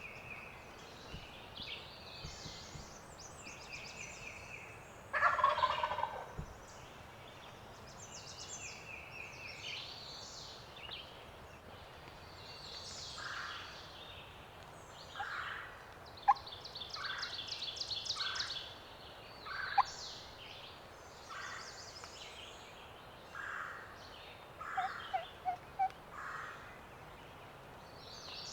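A wild turkey gobbler gobbles once, loudly, about five seconds in, over a chorus of songbirds singing. A short series of lower notes comes near the end.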